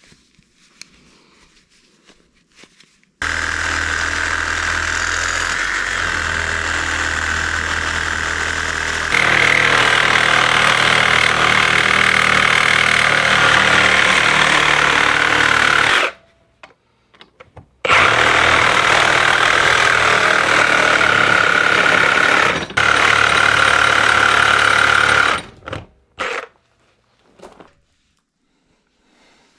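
A cordless reciprocating saw running in two long stretches of cutting. It gets louder and harsher about a third of the way in, stops for a couple of seconds, then runs again until shortly before the end, with a few knocks after it.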